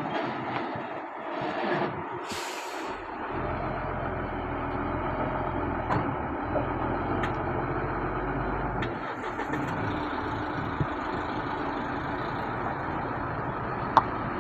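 Diesel engine of a heavy truck-mounted mobile crane running as the crane drives slowly. There is a short hiss of air about two seconds in, then a steady low engine sound, with a few sharp clicks; the loudest click comes near the end.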